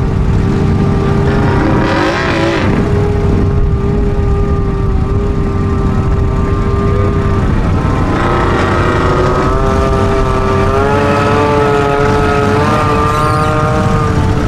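Off-road vehicle engines held at high revs, giving a steady high-pitched drone. About eight seconds in, a second engine's pitch climbs and joins it.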